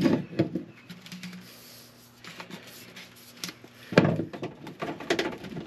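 Rigid PVC pipe and fittings being handled and laid down on a plywood deck: scattered light knocks and clicks, with a louder knock about four seconds in followed by a few quicker clicks.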